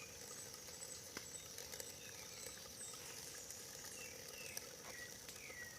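Outdoor ambience: a steady high-pitched insect drone, with several short falling chirps in the second half and a few light scattered ticks.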